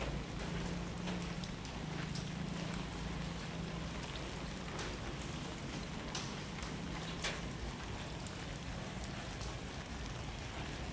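Light drizzling rain: a steady hiss with scattered drops ticking sharply on nearby surfaces. A low hum runs underneath, stronger in the first half.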